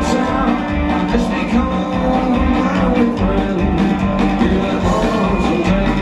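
Live rockabilly trio playing loud and steady: hollow-body electric guitar, upright bass and a drum kit with a regular beat.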